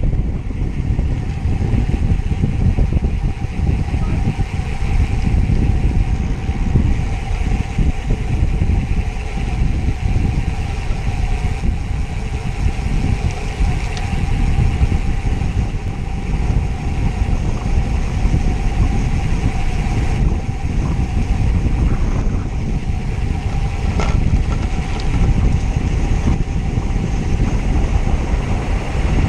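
Wind buffeting the microphone of a camera on a moving road bike: a loud, steady rumble, with a faint steady hum underneath and a couple of faint ticks.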